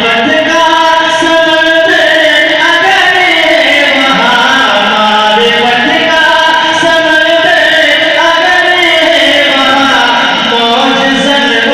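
A man singing a manqabat, a devotional poem in praise of a saint, into a microphone, in long held notes with wavering melodic turns.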